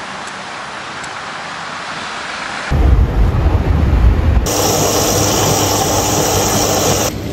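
Saeco Aulika automatic coffee machine frothing and dispensing milk for a cappuccino: a loud, steady whirring hiss with a low hum, starting about four and a half seconds in and stopping near the end. Before it come a steady hiss of outdoor ambience and then a deep rumble.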